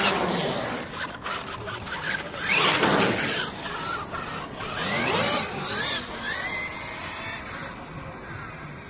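Traxxas E-Revo 2.0 electric RC truck driving on asphalt, its motor and drivetrain whining, rising and falling in pitch as it speeds up and slows. It is loudest about three seconds in and again around five seconds, then fades toward the end.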